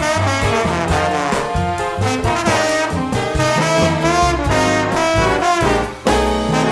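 Background music led by brass instruments with a bass line, briefly dropping away about six seconds in.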